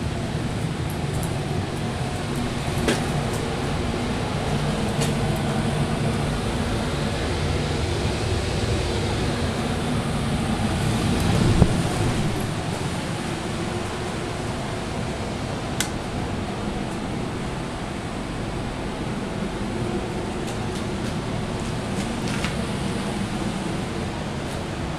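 Steady low hum of a running mechanical blower, with a few faint clicks and one brief thump about halfway through.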